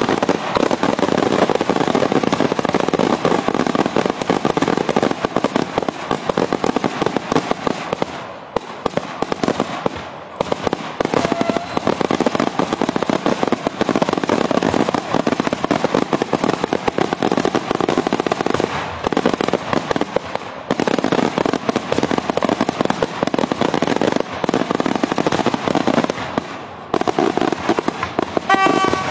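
Daytime aerial fireworks: a dense, continuous barrage of shell bangs and crackle, easing briefly a few times.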